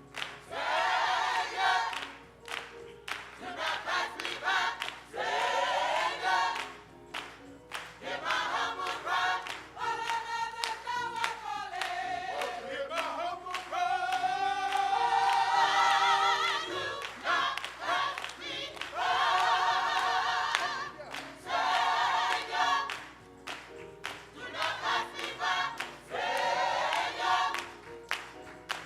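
Gospel choir singing in phrases, voices in harmony with little or no instrumental backing, with a long held, gliding note in the middle.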